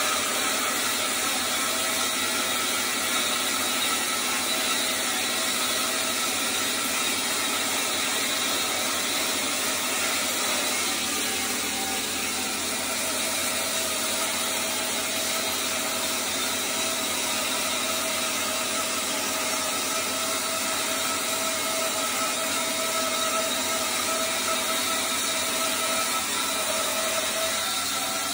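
Reliant 16-inch wood bandsaw running steadily while its 3/4-inch blade resaws a board of spalted maple: a continuous cutting noise with a faint steady tone over it.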